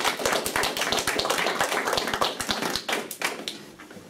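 Small audience applauding with a dense patter of hand claps that thins out and dies away near the end.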